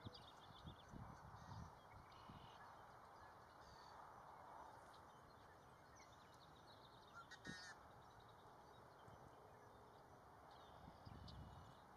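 Near silence: faint outdoor ambience with a few faint, short bird chirps and one brief call about seven and a half seconds in, plus a few soft low rumbles.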